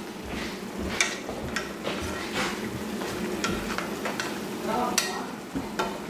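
A wooden spatula stirs and scrapes pork ribs in a nonstick frying pan in repeated short strokes. Under the strokes the meat sizzles steadily in its juices.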